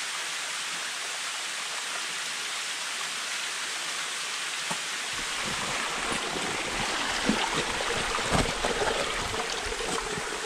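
Steady rush of water from a small cascade running down rock. About five seconds in, a low rumble and scattered knocks and scrapes join it as a person scrambles up a rocky gully close to the microphone.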